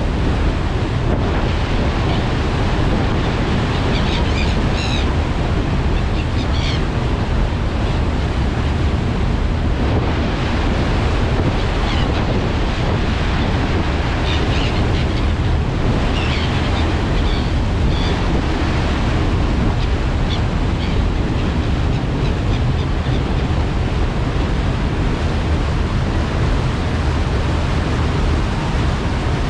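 Churning wake of a passenger ferry under way, with a steady low rumble and wind buffeting the microphone. Short high gull cries come through a few times, about 4 to 7 seconds in and again around 15 seconds.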